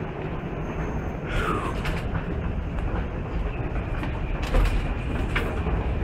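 Steady rumble of an underground metro station with a train running nearby, with scattered clicks and a short falling squeal about a second and a half in.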